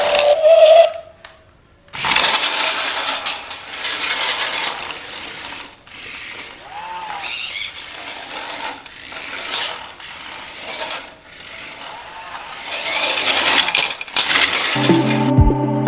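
Plastic toy mechanism running with a rattly, clicking whir of small gears, mixed with handling clatter; it drops out briefly about a second in. Music starts just at the end.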